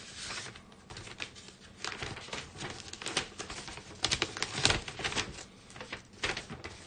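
Trading-card packaging being handled and opened: crinkling and rustling with a run of sharp clicks, loudest a little past the middle.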